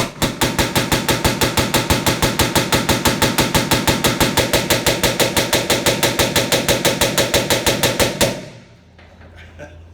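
Ford 6600 diesel tractor engine running with a loud, even popping back out through the intake and air cleaner, about six pops a second, until it shuts off suddenly about eight seconds in. The cause is a push rod that has jumped out of its rocker arm and is holding a valve open, with all valve clearances far too wide from lack of service.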